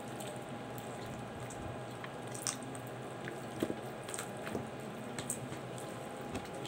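Hands working a whole raw chicken, breaking the wing joint and pulling the flesh from the bone: faint wet squishing and scattered small clicks over a steady room hum.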